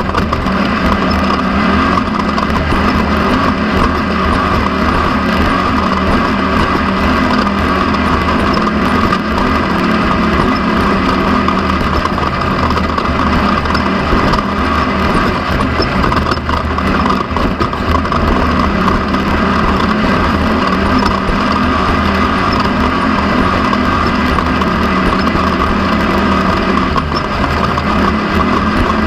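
Off-road race car's engine running steadily under way, heard from on board, mixed with wind and terrain noise.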